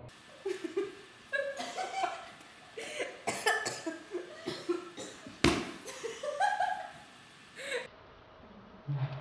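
Young people laughing, shrieking and coughing in bursts, with a sudden sharp loud sound about five and a half seconds in.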